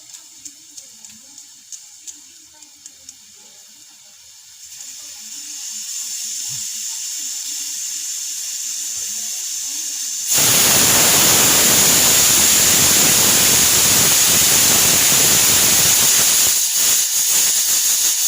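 Pressure cooker venting steam. A faint high hiss builds after about four seconds, then about ten seconds in the steam bursts out into a loud, steady hiss that holds, wavering slightly near the end.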